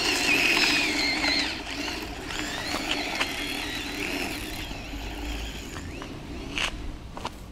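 Electric motor and gear drive of a Tamiya DF-03Ra 4WD radio-controlled car, whining up and down in pitch with the throttle, loudest at first and then fainter as the car pulls away. A couple of sharp clicks come near the end.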